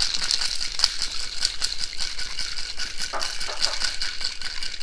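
Metal cocktail shaker full of ice being shaken really quite vigorously, the ice rattling rapidly and steadily against the steel.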